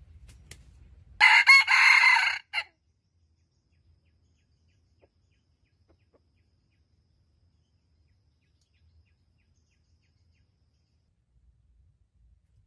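A red junglefowl rooster crowing once, about a second in: a short crow of about a second and a half, ending in a brief last note.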